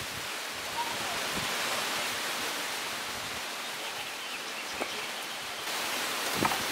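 Steady hiss throughout, with a few faint, short taps of a long metal tool on the scooter's battery terminal hardware, about a second in and again near the end.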